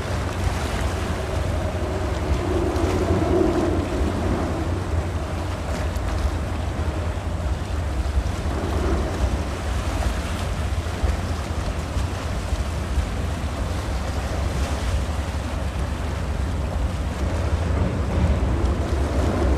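Wind buffeting the microphone as a steady low rumble, over a continuous rushing wash of sea water.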